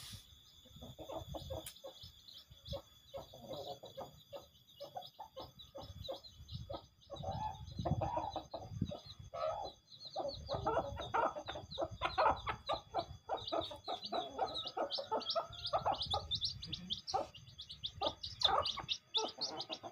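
Free-range village chickens clucking while they feed on scattered grain, with small chicks peeping in short high cheeps that come more often toward the end, over many light taps of pecking on the ground.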